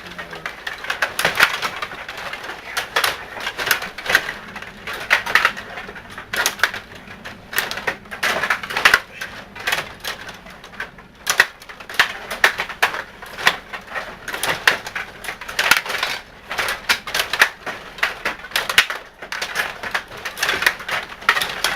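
Rapid, irregular clicking and clacking, several sharp clicks a second, from the controls of a hockey game being played by hand.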